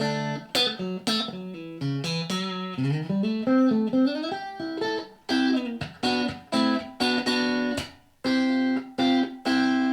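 Electric guitar played through a Blackstar ID:Core 40 combo amp: a run of chords and single notes, with a note sliding up in pitch about three seconds in, ending on a chord left to ring.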